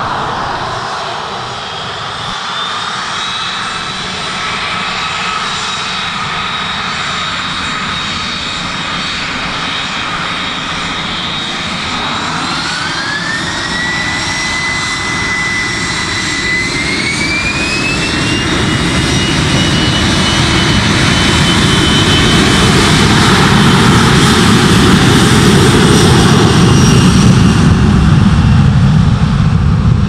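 Boeing 737 jet engines spooling up for take-off. A steady whine climbs in pitch in two steps, about halfway through and again a few seconds later. A deep roar then builds and is loudest near the end as the jet begins its take-off roll.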